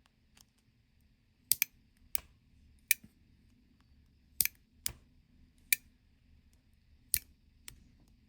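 Sharp metal clicks, about nine and irregularly spaced, as a small tool pries at the C-clip that holds a push button in a Casio G-Shock G-2300 watch case.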